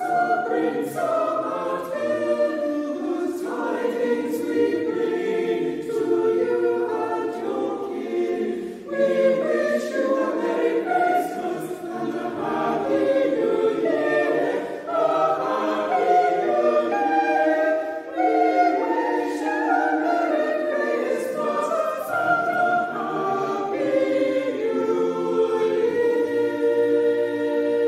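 A small church choir singing a Christmas carol, with the voices moving in harmony. Near the end it settles on a long held final chord.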